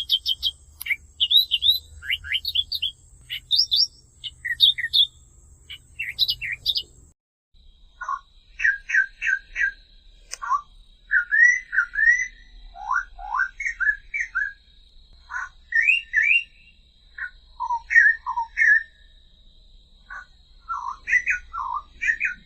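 Australian reed warbler singing a run of rapid, varied notes. After about seven seconds the song plays again slowed to half speed, an octave lower and more drawn out.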